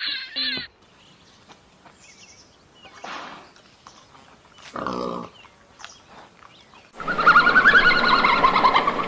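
Short repeated chirping calls from a stone marten that stop within the first second, then a brief wild boar grunt near the middle. About two seconds before the end, loud wavering high-pitched calls from giant pandas begin and continue.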